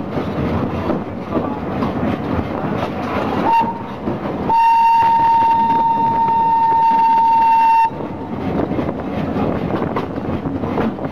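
Whistle of the Botchan Ressha replica steam locomotive: a brief toot, then about a second later one long, steady whistle lasting some three seconds. Underneath runs the steady rumble of the moving train.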